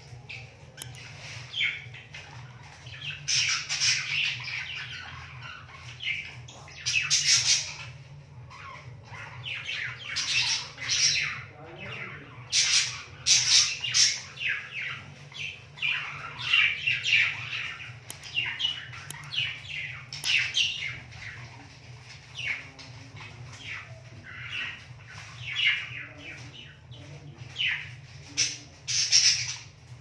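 Pet budgerigar chirping: a busy, continuous run of short, high calls, with a low steady hum underneath.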